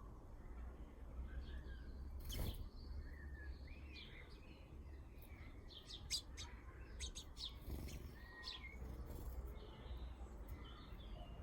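Small garden birds chirping and twittering, with a knock about two seconds in and a run of sharp ticks past the middle, over a steady low rumble.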